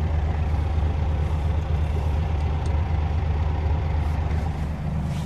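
Scania G400 truck's inline-six diesel engine idling steadily, a low even drone heard from inside the cab.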